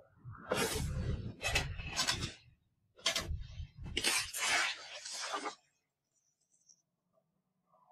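Fight sound effects from a kung fu film: a quick run of about six swishes and hits, each with a dull thud under it, ending about two thirds of the way in.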